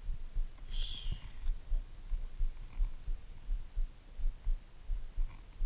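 Low, irregular thumping rumble, several thumps a second, with no clear pitch.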